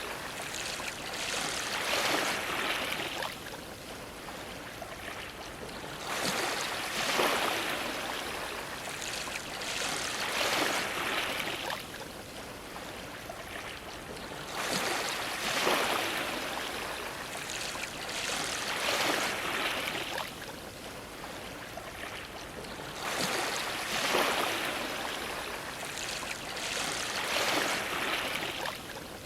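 Small ocean waves washing and splashing against a dock, the rushing hiss swelling and falling away every few seconds.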